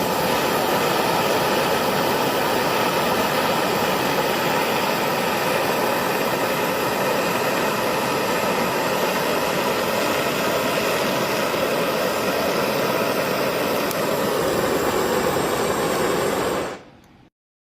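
Loud, steady rushing noise with no distinct tone or rhythm, which drops away sharply near the end and then stops.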